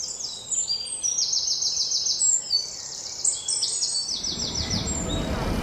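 Songbirds singing: fast trills of short, high, repeated notes, several phrases at different pitches overlapping. A low rumble comes up in the last second or so.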